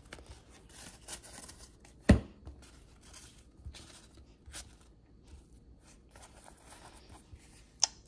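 Trading cards being handled and sorted by hand: faint rustling and sliding of card stock, with a sharp tap about two seconds in and another near the end.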